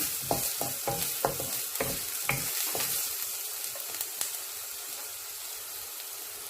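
Onions and garlic sizzling in hot olive oil in a pan, with a utensil knocking and scraping against the pan as they are stirred, most often in the first few seconds.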